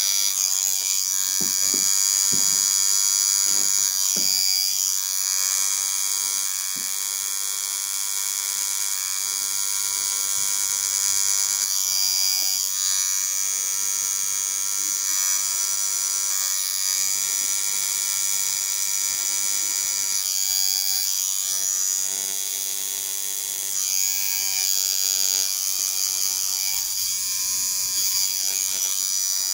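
Cartridge tattoo pen running steadily with a high electric buzz as it lines a tattoo, its pitch dipping briefly now and then.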